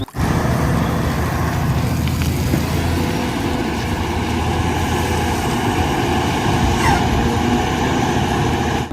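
A motor running steadily: a low rumble with a hiss over it.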